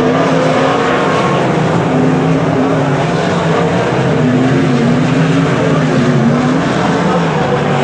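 Winged sprint cars racing on a dirt oval, their V8 engines running loud and overlapping. Several engine notes rise and fall as the cars pass and go through the turns.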